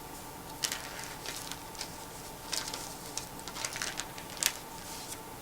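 Faint, scattered rustles and soft ticks of book pages being turned, as a Bible is leafed through to find a passage. A faint steady hum lies underneath.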